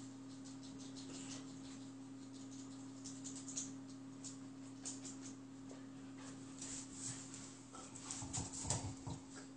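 Small dog moving about on a rug and tiled floor: soft scattered clicks, then a short burst of sniffing and shuffling near the end as it noses at the sofa. A steady low hum runs underneath.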